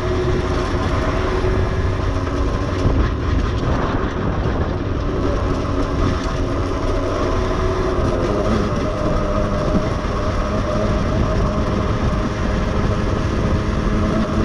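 Aprilia two-stroke moped engine running steadily at cruising speed on its stock, quieter exhaust, with heavy wind rush on the microphone.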